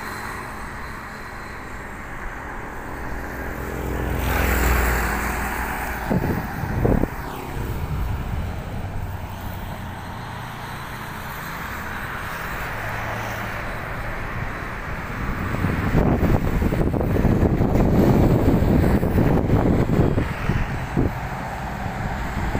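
Road traffic on a bridge: a vehicle engine hums steadily, a vehicle passes about four seconds in, and a louder rush of passing traffic comes from about 16 to 20 seconds.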